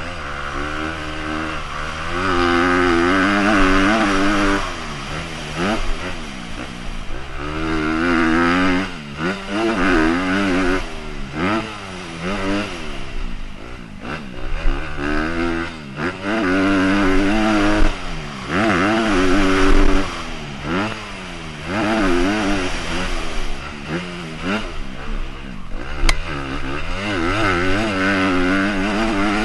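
Honda CRF250 dirt bike's single-cylinder four-stroke engine ridden hard round a motocross track, its pitch climbing and dropping again and again as the throttle is opened and rolled off between corners and jumps. A single sharp click about 26 seconds in.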